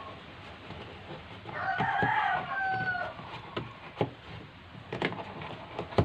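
A rooster crows once about a second and a half in, a call of about a second and a half that ends on a held note. Around it come scattered short clicks and knocks of a plastic hose being worked into a plastic washing-machine tub.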